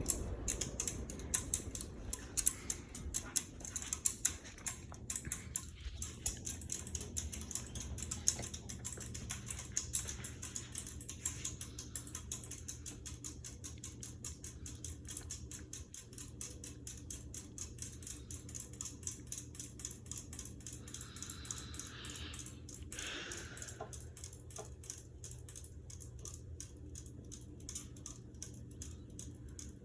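Minka Aire Carmel ceiling fan coasting down after being switched off from high speed, with a long run of rapid, faint ticking that slowly fades.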